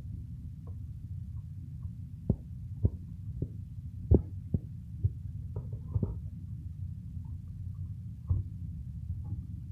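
Slime being squeezed and kneaded in the hands, giving irregular soft pops and clicks, the loudest a little after four seconds in, over a steady low rumble.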